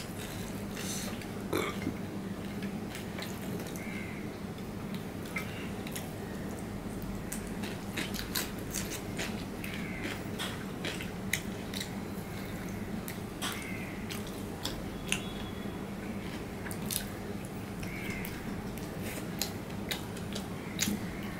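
Close-up eating sounds: chewing and lip smacking, with many short, sharp mouth clicks scattered throughout over a steady low hum.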